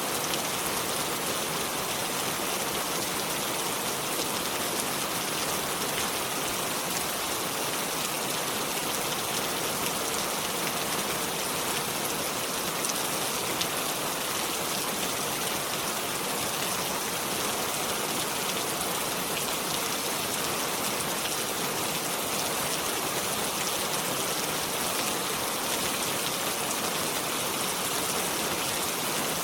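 Steady rain falling with a continuous hiss and scattered drop ticks, unchanging throughout.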